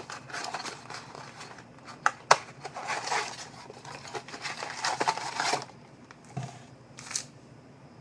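Crinkling and tearing of plastic wrap and card-stock packaging as a trading-card blaster box is opened and its packs handled, with a couple of sharp snaps about two seconds in.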